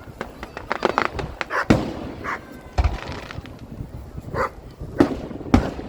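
Fireworks going off: a string of sharp bangs and crackles, with louder booms about two, three, five and five and a half seconds in.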